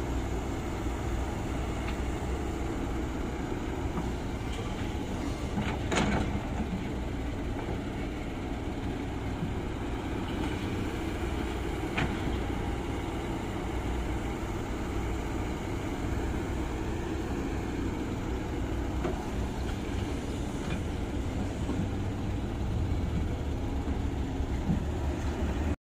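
Kobelco hydraulic excavator's diesel engine running steadily under load as it digs soil and loads a dump truck. A few sharp knocks ring out over it, the loudest about six seconds in.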